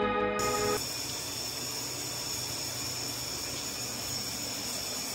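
A held music chord that cuts off less than a second in, followed by a steady, even hiss of room tone.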